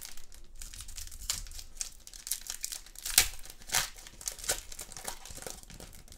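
Foil trading-card pack being torn open and crinkled by hand: a run of irregular crackles and tears, loudest around the middle.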